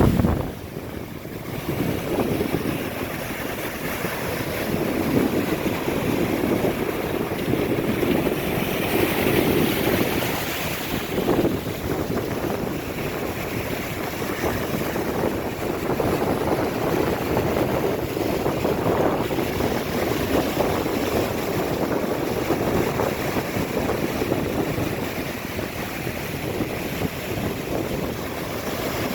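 Atlantic surf breaking and washing up the beach in slow swells, with wind buffeting the microphone.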